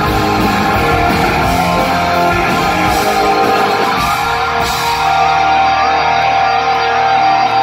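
A live punk rock band playing loud, with distorted electric guitars and drums. About halfway through, the drums drop out and the guitars hold long ringing notes.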